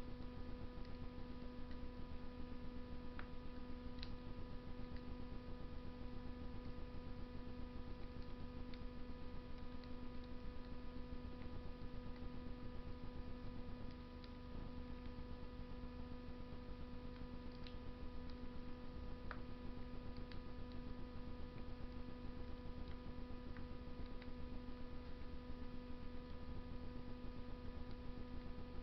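Wood fire burning in a Russian masonry stove: faint, scattered crackles and pops over a steady electrical hum.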